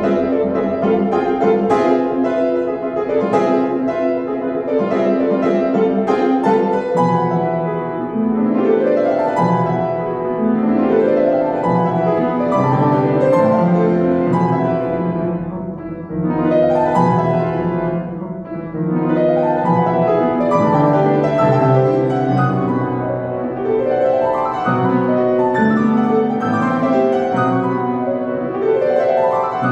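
Upright piano played solo: a fast, dense classical passage with runs and arpeggios sweeping up and down the keyboard.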